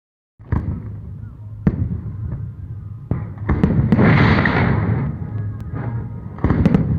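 Fireworks going off: a string of sharp bangs at irregular intervals, with a louder stretch of crackling and fizzing about four seconds in.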